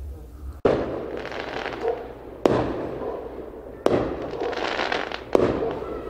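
Fireworks bursting in the sky: four sharp bangs about a second and a half apart, each followed by a trailing crackle.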